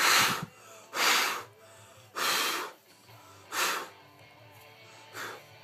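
A person blowing sharp puffs of air onto a bobblehead figure to clear dust off it: five puffs about a second apart, the last one weaker.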